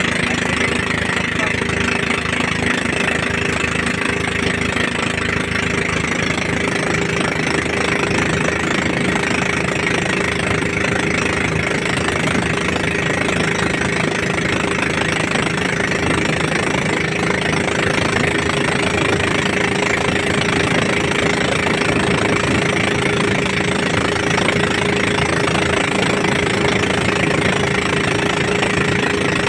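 Motor of a bangka outrigger fishing boat running steadily under way at sea.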